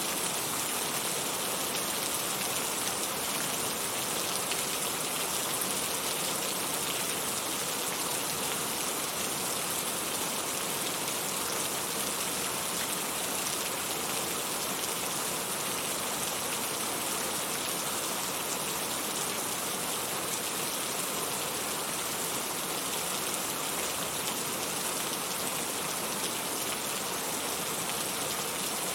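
Heavy rain pouring steadily, an even, bright hiss with no let-up.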